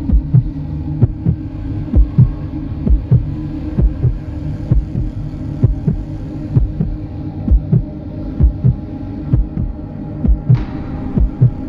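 Heartbeat sound effect: paired low lub-dub thumps repeating steadily about once a second over a constant low hum.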